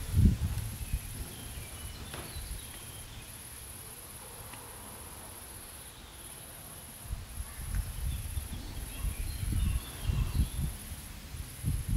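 An insect stridulating as a thin, high buzz in long stretches broken by brief gaps, with irregular low rumbles at the start and again from about seven seconds in.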